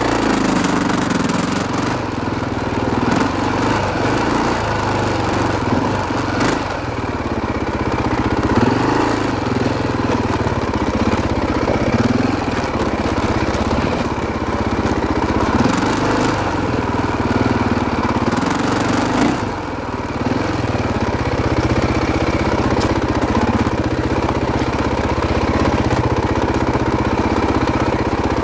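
KTM 530 EXC single-cylinder four-stroke dirt bike engine running continuously, its revs swelling up and falling back every few seconds as the bike works over rough, rocky ground.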